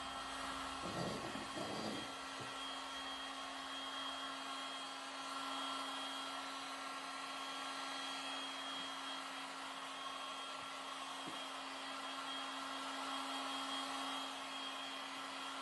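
Electric heat gun blowing steadily with a motor hum and fan hiss, just after spinning up, with a couple of soft bumps about a second in.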